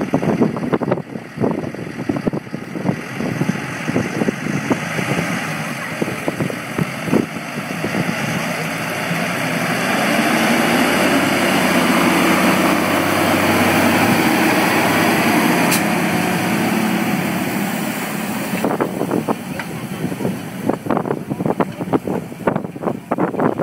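Fendt Vario tractor's six-cylinder diesel engine pulling a Bruns slurry tanker with its injector working in the ground, getting louder as it passes close by in the middle and falling away as it drives off.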